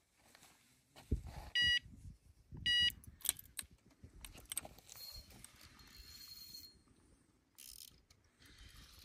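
Carp-fishing electronic bite alarm giving two short beeps about a second apart, marking line movement at the rod: a possible bite. Scattered clicks and rustling follow.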